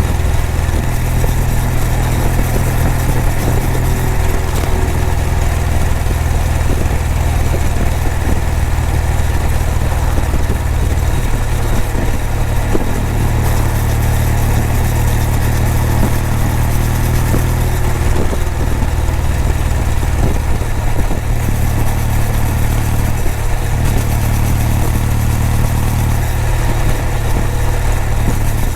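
Kawasaki W800's air-cooled parallel-twin engine running, its exhaust giving a steady low beat that shifts slightly in pitch a few times.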